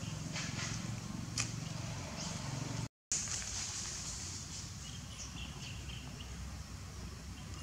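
Outdoor background sound: a steady low hum with faint scattered ticks and a few short, high chirps. The sound drops out completely for a moment about three seconds in.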